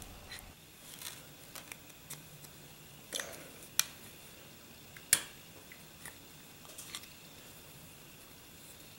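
Handling noise of a pistol grip panel being worked loose with a punch: scattered small clicks and scrapes, with a few sharper clicks about three to five seconds in.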